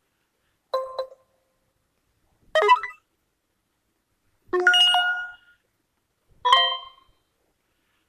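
A UMX phone's built-in notification tones played one after another: four different short chimes, each half a second to a second long, with a silent gap of about a second between them.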